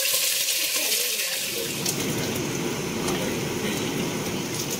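Chicken pieces frying in hot oil in a large pan, a steady sizzle with occasional small crackles.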